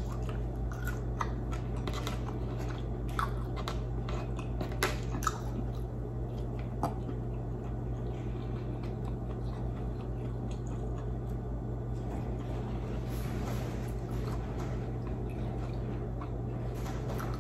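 Close-up mouth sounds of someone chewing oven-baked squid: wet squishes and clicks, busiest in the first several seconds and sparser after, over a steady low hum.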